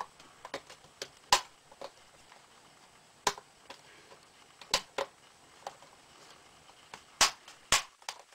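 Sharp plastic clicks and snaps from a Dell laptop's hinge cover being pressed into place, about a dozen at irregular intervals, the loudest about a second in and two near the end.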